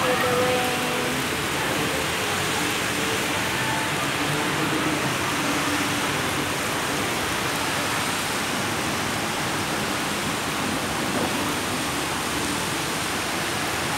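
Heavy tropical rain pouring onto paved pavement and road, a steady, even hiss.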